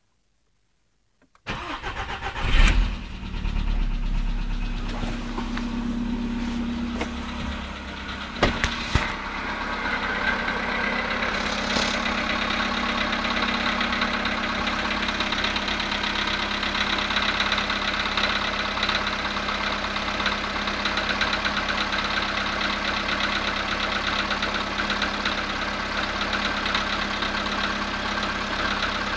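Volkswagen Polo Sedan petrol engine cold-started at −2 °C after standing 22 hours: the starter cranks briefly, the engine catches about a second later and settles into a steady idle with the knock that is the owner's complaint. A couple of sharp clicks sound about nine seconds in.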